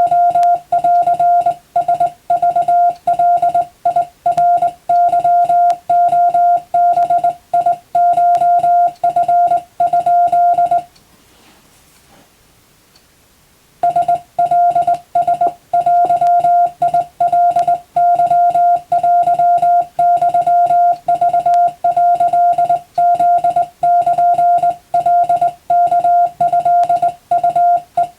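Morse code: a single steady tone keyed on and off in quick dots and dashes, practice sending of Japanese-language (wabun) telegram text. It stops for about three seconds midway, then resumes.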